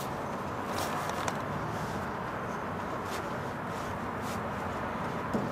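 Soft rustles and a few light knocks from a sheet of automotive carpet being shifted and pressed into place on a truck cab floor, over a steady background rush.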